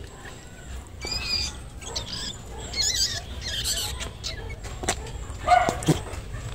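Newborn rabbit kits squealing in the nest: several short, high-pitched, wavering cries in the first few seconds, followed by a louder, lower sound and a sharp knock near the end.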